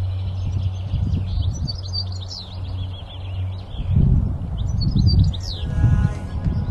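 European goldfinch singing: short phrases of quick, high chirps and twittering trills. Under them runs a low rumble that turns gusty about four seconds in.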